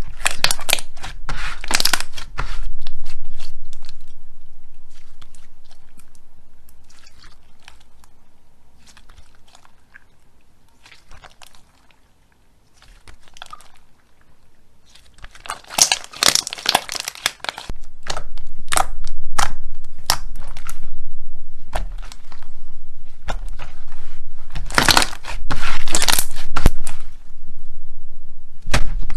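Slime being pressed and squeezed, giving dense runs of crackling and popping. There are three busy bursts: at the start, about halfway through and near the end, with sparse single pops in between.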